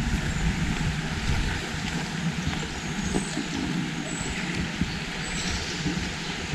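Outdoor woodland ambience: a steady rushing noise with irregular light footsteps, and a few brief high bird chirps near the middle.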